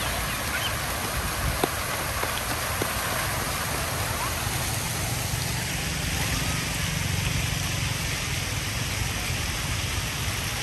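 Fountain jets splashing down into a pool: a steady rushing patter of falling water, with a couple of faint clicks in the first few seconds.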